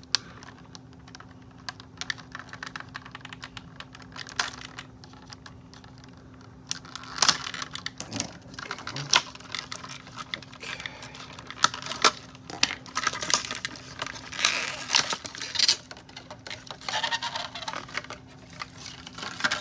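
Stiff clear plastic doll packaging being handled and worked loose by hand: irregular clicks, crackles and rustles, sparse at first and much busier from about seven seconds in, over a faint steady hum.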